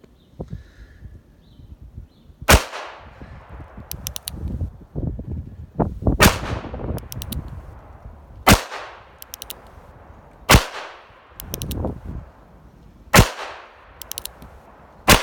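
Heritage Rough Rider single-action .22 revolver firing .22 Magnum rounds: six sharp shots spaced two to three seconds apart, the last right at the end. Between shots come quick clusters of light metallic clicks as the hammer is thumbed back and the cylinder turns.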